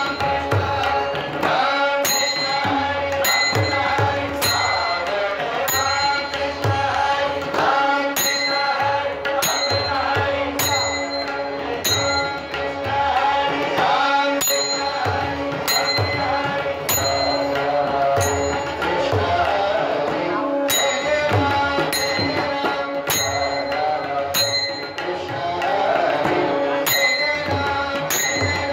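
Marathi bhajan music: a sung devotional melody over a steady held drone, with hand drums and small metal cymbals struck in a steady beat about once a second.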